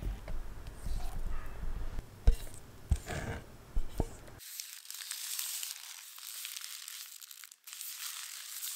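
Thick batter being poured from a metal bowl into a piping bag, with a few light knocks. About halfway through it gives way to a thin, steady rustling and crinkling as the piping bag is handled in a plastic jug.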